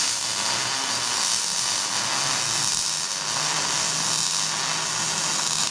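A machine running steadily: an even whirring hiss with a constant low hum beneath it.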